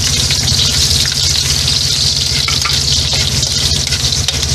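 Sliced onions sizzling in hot oil in a metal wok, stirred with a metal spoon, with a steady low hum underneath.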